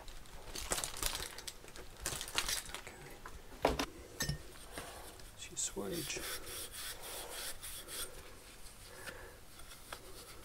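Copper pipe being rubbed clean with an abrasive pad: repeated scraping and rubbing strokes, with a couple of sharp metallic clanks about four seconds in as the pipe tool is handled.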